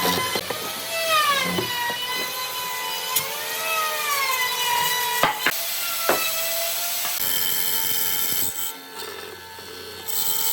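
Handheld power tool cutting or sanding wood, its motor whine dipping and rising in pitch as the load changes, with a few sharp knocks about five to six seconds in.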